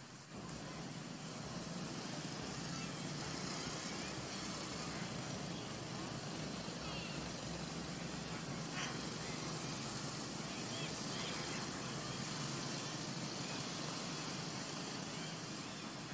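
Steady outdoor background noise with faint high chirps scattered through it, and a single sharp click about nine seconds in.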